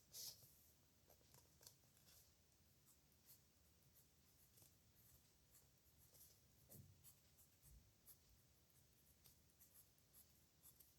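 Pen nib scratching across paper in short, faint handwriting strokes with small pauses between them, a louder stroke right at the start.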